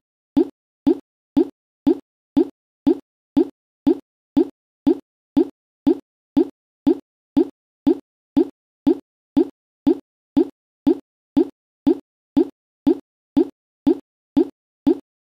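A short, low pop sound effect, repeated identically about twice a second with dead silence in between, like a loop.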